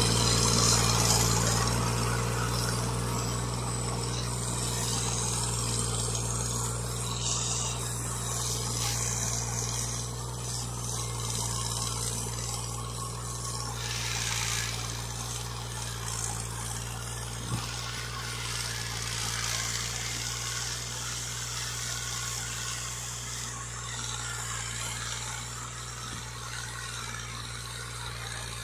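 Farm tractor's diesel engine running steadily under load as it pulls a tine cultivator through dry soil, growing fainter as the tractor moves away.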